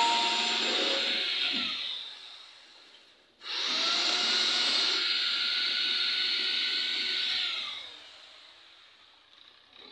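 A small electric motor whirring steadily with a thin whine, running twice. Each time it winds down, falling in pitch as it stops: first about two seconds in, and again near eight seconds.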